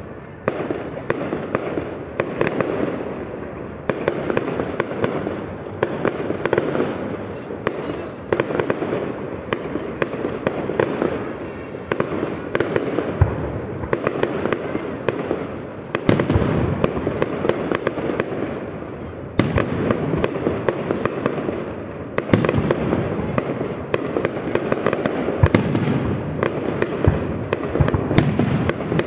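Fireworks display: a continuous run of bangs and crackles from bursting shells, with a few louder booms around the middle.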